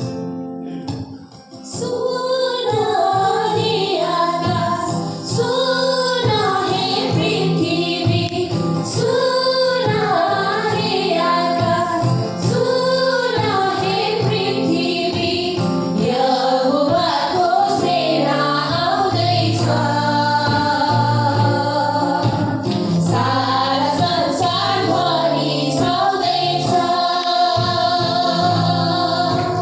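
Women singing a Christian worship song together over instrumental accompaniment, starting in about two seconds in.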